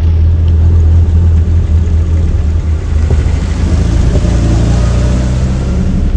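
Jeep engine running as the vehicle drives along, its pitch rising somewhat in the second half, under a heavy low rumble.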